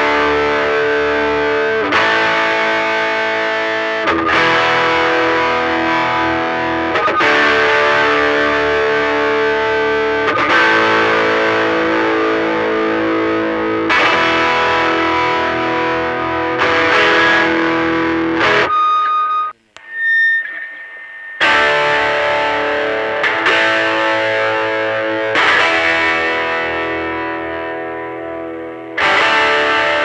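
Electric guitar chords strummed and left to ring, about one every two to three seconds. The Strat single-coil pickup carries an Alnico humbucker bar magnet set on its edge, and the guitar is overdriven through Tube Screamer and Klon-type pedals with reverb. The sound cuts out briefly a little before two-thirds of the way through, then the chords resume.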